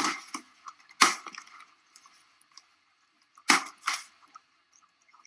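Four sharp impact sounds: one at the start, one about a second in, and a close pair about three and a half seconds in, each dying away quickly.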